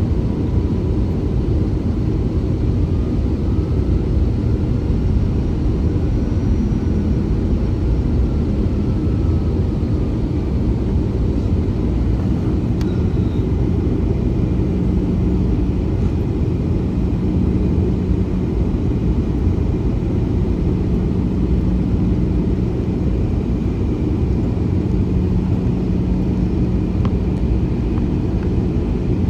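Airbus A321-211 cabin noise: a steady low rumble of its CFM56 engines and airflow, heard from inside the passenger cabin, with a steady low hum joining about halfway through.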